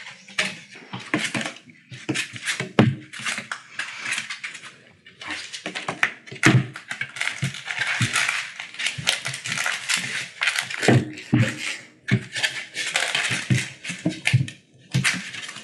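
Collie puppies' claws clicking and scrabbling on a laminate floor and a wooden balance board, with repeated thumps as the board rocks and knocks against the floor.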